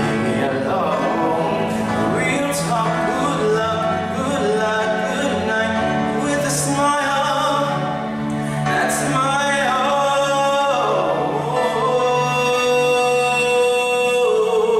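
Male vocalist singing a ballad into a microphone over instrumental accompaniment, ending on a long held note.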